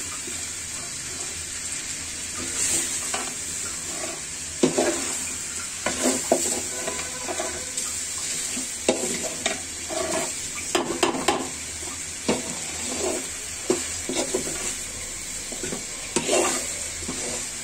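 A metal spatula scrapes and clinks irregularly against a metal pan as a chicken and potato curry is stirred and fried down over a gas flame, over a steady sizzle.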